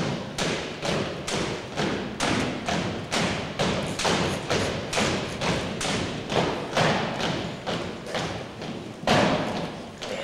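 Drill team's boots striking a gymnasium floor in step, about two heavy heel strikes a second, echoing in the hall. One louder strike comes near the end.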